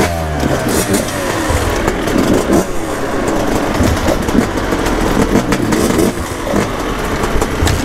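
Several dirt bike engines running and revving together, pitch rising and falling over and over, with the rider's own Yamaha YZ250 two-stroke running close by.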